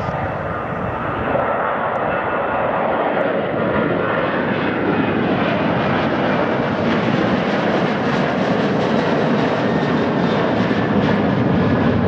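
Boeing 737-800's CFM56-7B turbofan engines at takeoff power as the jet climbs out overhead: a loud, steady jet rumble that deepens as the aircraft passes and moves away, with a faint falling whine in the first few seconds.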